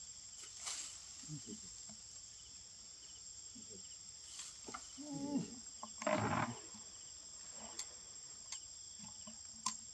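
Steady high-pitched insect chorus droning throughout, with a few short low voice-like sounds over it, the loudest a brief harsh one about six seconds in.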